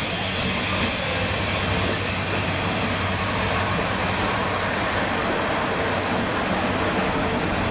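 Class 55 Deltic diesel locomotive rolling slowly into the platform with its train, its Napier Deltic engines running with a steady hum, over a continuous hiss of steam from a steam locomotive standing alongside.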